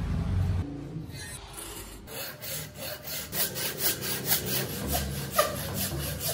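Hand frame saw cutting into a solid wooden block. From about two seconds in it rasps back and forth in quick, even strokes, about four a second.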